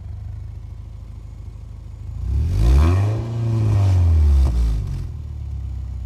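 Subaru Forester's flat-four engine idling through a Cherry Bomb muffler loosely fitted to the end of the exhaust pipe, then revved about two seconds in, held up for about two seconds, and dropping back to idle.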